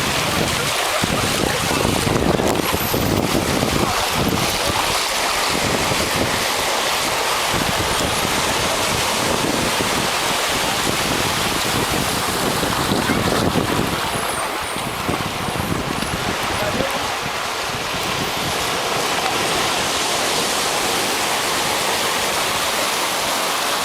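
Sea surf washing onto a beach, a steady loud rush of waves, with wind buffeting the microphone.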